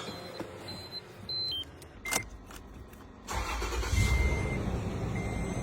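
Toyota Camry engine started by bypassing its starting circuit: after a few short electronic beeps and a click, the engine catches about three seconds in and keeps running steadily, with a dashboard chime beeping in repeated short tones over it.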